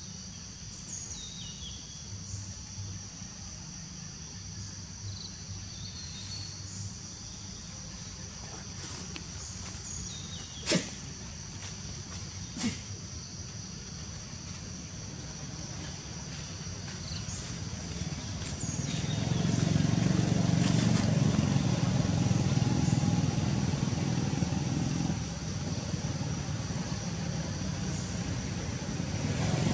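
Steady high insect drone with a few short bird chirps and two sharp clicks. About two-thirds of the way in, a motor vehicle engine comes up and runs as the loudest sound.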